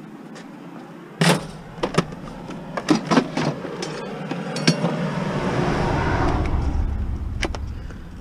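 Scrap metal clanking in the back of a minivan as pieces are handled and set into the load: one loud knock about a second in, then several lighter knocks and rattles. A rushing noise with a low rumble then swells and fades over a few seconds.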